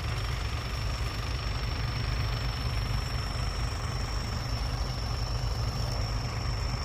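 Heavy diesel engine idling steadily with a low rumble, and a thin, steady high-pitched whine above it.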